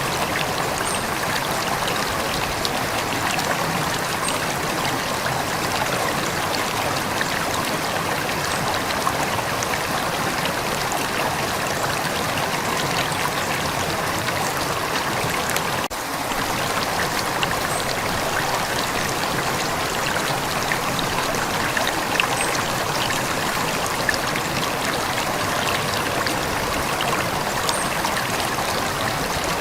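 River water flowing steadily over stones, a continuous rushing babble with faint scattered trickles and splashes.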